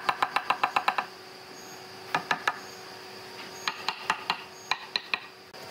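Light taps or knocks, a quick run of about eight a second at first, then a few scattered taps after a pause, over a faint steady hum.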